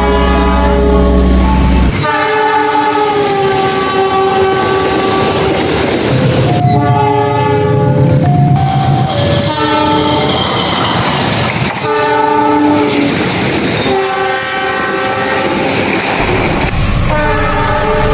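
Diesel locomotive air horns: a series of separate horn soundings cut one after another, each a chord of several steady tones, some held for a few seconds. Train running noise and wheel clatter sound underneath, with a deep engine rumble for the first two seconds.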